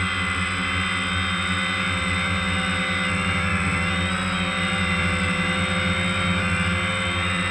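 Multirotor drone's electric motors and propellers running steadily, heard from the camera mounted on the drone, with slight shifts in pitch as it holds position and turns.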